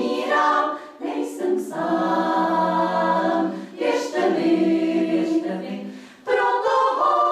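Women's vocal choir singing without accompaniment, held sung chords in phrases, with a short break about six seconds in before the next phrase starts loud.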